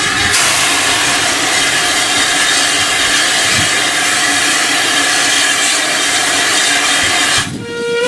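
Caledonian Railway No. 419, an 0-4-4 tank steam locomotive, standing with steam hissing loudly and steadily. The hiss cuts off about seven seconds in, and a short steam whistle sounds at the very end.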